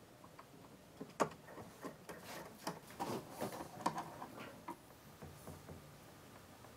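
Faint, scattered clicks and light taps of a plastic bow handle and its screws being fitted and screwed onto a wooden drawer front, mostly between about one and five seconds in.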